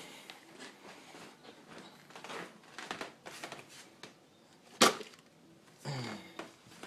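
Scattered light clicks and rustles of things being handled, with one sharp knock about five seconds in.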